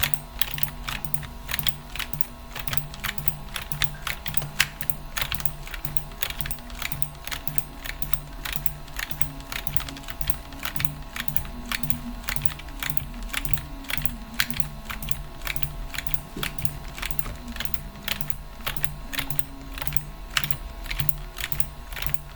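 Rapid, irregular clicking, several clicks a second, like typing on a keyboard, over a music beat with a stepping bass line.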